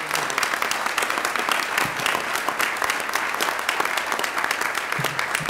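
Audience applause, many hands clapping steadily.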